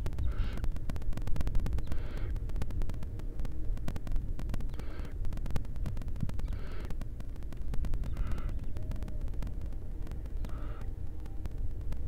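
Barn owls in a nest box giving short, raspy hissing calls, six of them about every one and a half to two seconds, over a steady low rumble and faint ticking.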